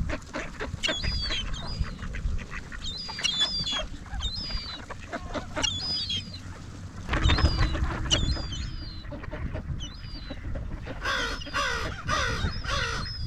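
A flock of birds calling, mallard ducks among them: repeated short calls, with a run of louder, harsher calls near the end.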